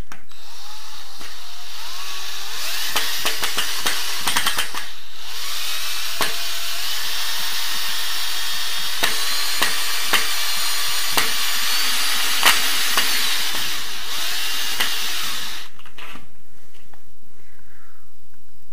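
Electric drill-driver running in short and long pulls, driving self-tapping screws into a shower cabin's frame profile; the motor's pitch rises and falls with the trigger and sharp clicks come through it. It stops about three seconds before the end.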